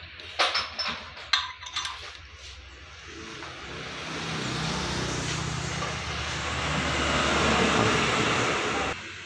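A few light metallic clinks of small metal parts being handled in the first two seconds. Then a steady engine-like rumble with a hiss swells up, is loudest near the end, and cuts off suddenly.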